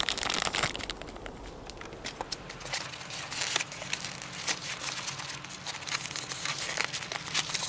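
Clear plastic bag crinkling in the hands, then polystyrene packaging and tissue paper being handled as a model train is lifted out of its tray: a run of irregular crackles and light clicks.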